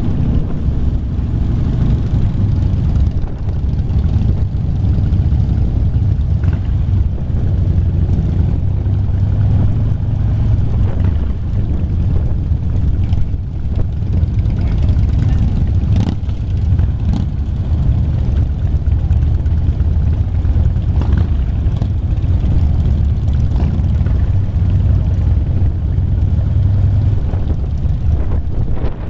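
Motorcycle engines running steadily in a slow-moving pack: the close, low rumble of the camera's own cruiser motorcycle with other bikes around it, holding an even pace without revving.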